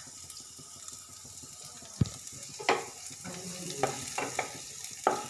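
Chopped onions sizzling in a little hot ghee in a nonstick kadai, stirred with a wooden spatula: a steady sizzle, a sharp knock about two seconds in, then several scraping strokes against the pan.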